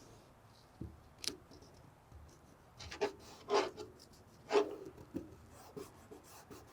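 Masking tape being applied to a window's glass pane by hand: a sharp click about a second in, then a few short noisy strokes of the tape being worked on in the middle.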